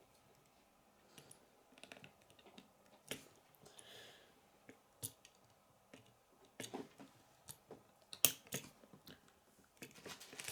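Plastic Lego bricks clicking and tapping as pieces are handled and pressed together: scattered, irregular small clicks, the sharpest about eight seconds in, with a brief soft rustle around four seconds in.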